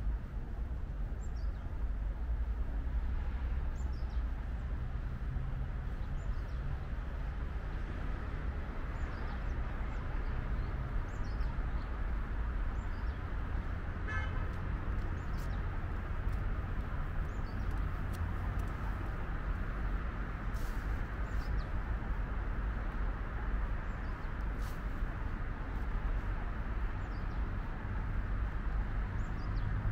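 Outdoor city-park ambience: a steady low hum of distant traffic, with a small bird giving short high chirps every second or two.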